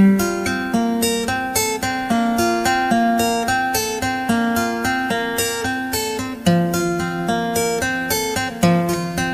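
Background music: a plucked acoustic guitar playing a steady picked melody.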